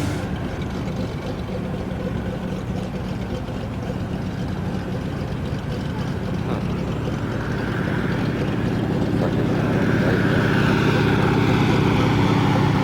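Float plane's engine and propeller running steadily, growing gradually louder over the last few seconds.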